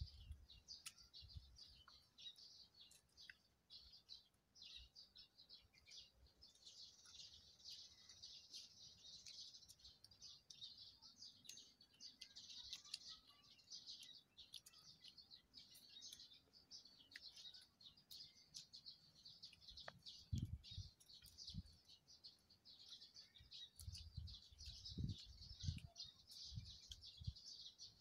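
Faint, dense, high chirping and twittering of small birds, going on throughout. There are a few low thumps about two-thirds of the way through and again near the end.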